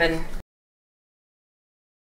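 A woman's voice ends on one last word about half a second in, then the sound cuts off abruptly to total digital silence.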